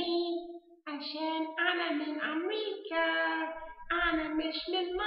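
A high, child-like voice singing in long held notes, with a short pause just before a second in.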